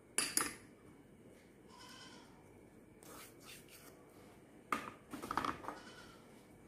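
Sharp clinks and knocks of small dishes against a glass mixing bowl as ingredients are tipped in: one knock about a fifth of a second in, then a quick cluster of knocks just before the five-second mark.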